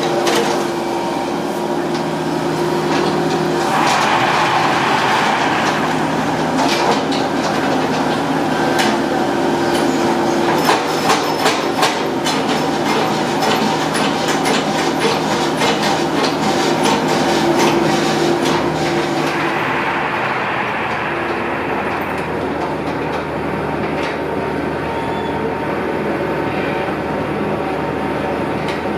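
Heavy machinery engine running steadily, with a stretch of dense metallic clanking and rattling in the middle.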